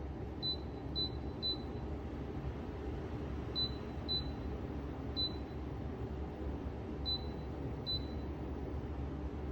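Dreo ceramic space heater's touch-button beeps, eight short high beeps at uneven intervals as its settings are pressed, over the steady low hum of the heater running.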